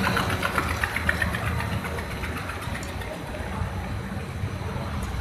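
Snack food production line machinery running: a steady low motor hum, with a rapid ticking clatter in the first second or so that fades out.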